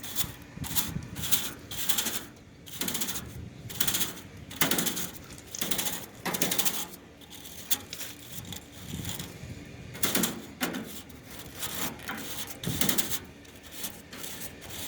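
HVAC coil brush scrubbing dust off the fins of a Tempstar air conditioner's condenser coil, in quick repeated scratchy strokes, about two a second.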